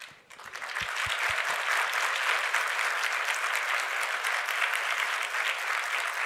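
Audience applauding, rising within the first second and then holding steady.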